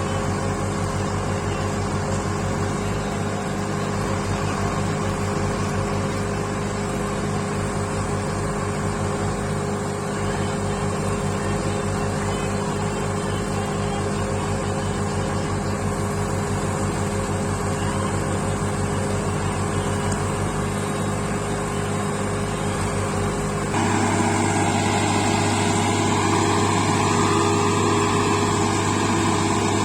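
Heavy machine's diesel engine running steadily. About 24 s in it gets louder and takes on a wavering higher tone.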